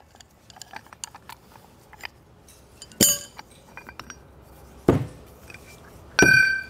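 Three sharp metallic clanks among lighter clicks and taps, the last ringing for about half a second: steel bearing-puller parts knocking against the differential carrier as a carrier bearing is pulled off.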